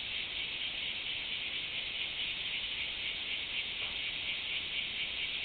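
Cicadas singing: a steady, high-pitched buzzing drone that does not break.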